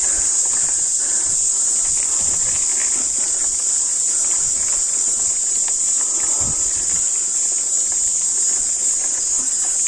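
A steady, high-pitched chorus of insects, with a few faint low knocks from a mountain bike climbing a rocky trail.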